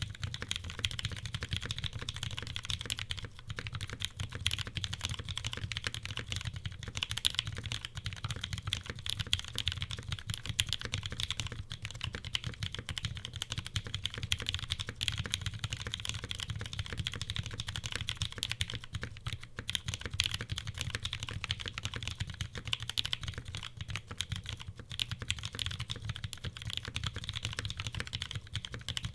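Continuous typing on a custom mechanical keyboard: lubed, filmed retooled Cherry MX Brown tactile switches in an o-ring gasket-mounted polycarbonate plate, with GMK keycaps. It is a steady stream of key clacks, many a second, with no real pauses.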